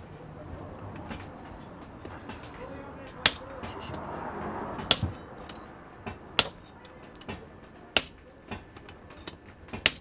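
Hammer blows on a hot-cut chisel set on a red-hot iron coil at the anvil. There are a few light knocks, then from about three seconds in five sharp metallic clangs about a second and a half apart, each with a high ring.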